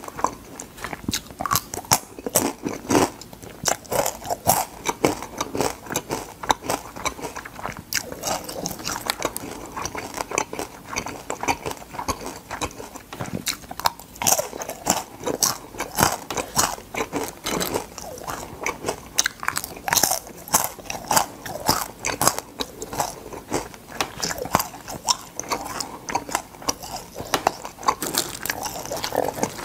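Crispy fried crab being bitten and chewed: a continuous, irregular run of sharp crunches, several a second.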